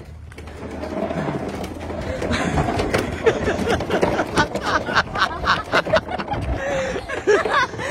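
A large corrugated pipe rolling over concrete with a person inside: a rough rolling rumble that builds over the first second or two, then runs on with many knocks and rattles.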